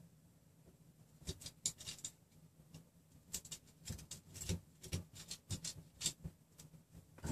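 Light, irregular clicks and taps of a 3D-printer frame of threaded steel rods, nuts and plastic parts being handled and shifted on a tabletop, along with a wooden measuring stick being set down.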